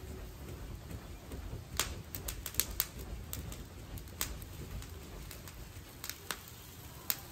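Charcoal grill with kebab skewers over the coals giving off scattered sharp pops and crackles, a cluster about two seconds in and a few more near the end, over a low steady rumble of air as the coals are fanned.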